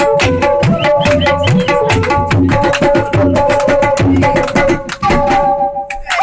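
Tabla playing a fast rhythm, the bass drum's pitch sliding upward on many strokes, under a melody of long held notes. The drumming stops about five seconds in while a final note is held on, closing the piece.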